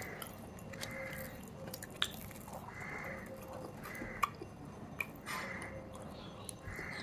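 A person chewing and biting mouthfuls of aloo paratha, a potato-stuffed flatbread, with soft mouth sounds and a few sharp clicks.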